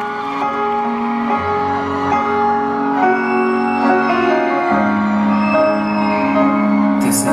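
Instrumental intro of a slow pop ballad, played as sustained piano and keyboard chords over a sound system. A short burst of high-pitched noise comes near the end.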